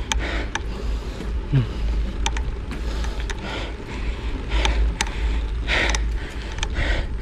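Wind buffeting the microphone of a camera moving along a concrete road, with a steady low rumble, a hiss that swells and fades, and scattered sharp clicks.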